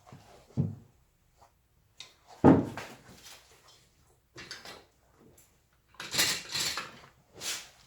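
Carving knife cutting into wood: a handful of short, uneven slicing and scraping strokes, with a louder knock about two and a half seconds in and a quick run of sharper cuts near the end.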